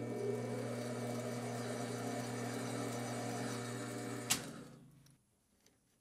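Small metal lathe running with a steady motor hum while taking a light spring pass on a single-point-cut brass thread. A click about four seconds in, then the lathe winds down and stops.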